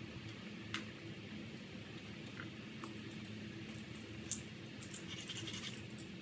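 Pork bones boiling in water in a stockpot, bubbling steadily, with a few sharp pops and a crackly spell near the end, over a steady low hum.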